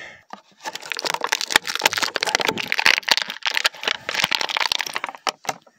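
Clear plastic blister tray of an action-figure package crackling and crinkling as hands work the figure out of it: a dense run of sharp crackles lasting about five seconds.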